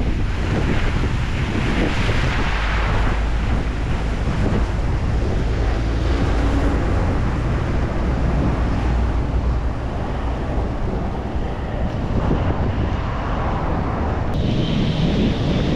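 Strong wind buffeting the microphone in a steady low rumble, with waves washing on the shore beneath it.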